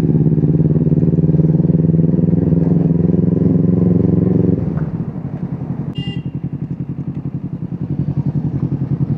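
Motorcycle engine running at a steady pace, then dropping in level about four and a half seconds in, its pulsing beat coming through more clearly. A short high beep sounds about six seconds in.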